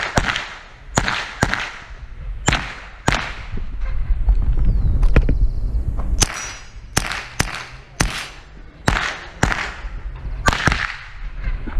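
A SIG Sauer 522 SWAT semi-automatic .22 LR carbine firing a string of about a dozen shots, spaced unevenly from about half a second to a second apart, as the shooter engages targets.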